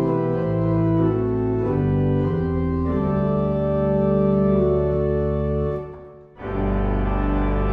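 Church organ playing a hymn in sustained chords, with no voices singing. About six seconds in the sound dies away briefly at the end of a phrase, then the next chord comes in.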